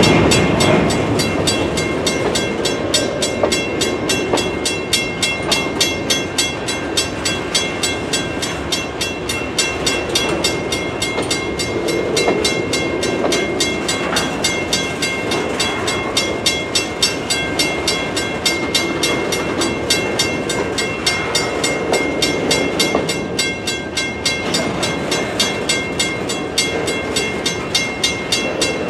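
Freight train of covered hopper cars rolling past: steel wheels rumble and clack over the rail joints. Over it, a grade-crossing bell rings steadily and rapidly.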